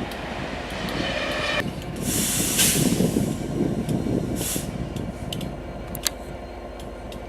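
Train rumbling along the track with scattered clicks, a brief squeal about a second in, and two loud bursts of hissing a little later.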